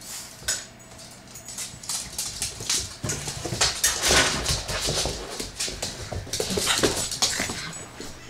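A bloodhound puppy and a pug play-wrestling: rapid scuffling and knocking, mixed with short dog whimpers and cries, getting louder and busier about three seconds in.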